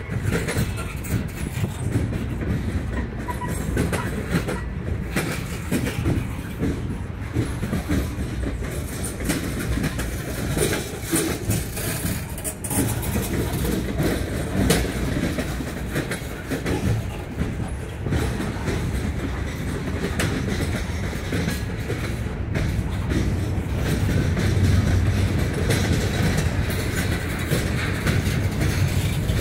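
Freight cars of a Norfolk Southern train rolling past: a steady rumble of steel wheels on rail with a run of clicks as the wheels cross rail joints, a little louder near the end as a covered hopper goes by.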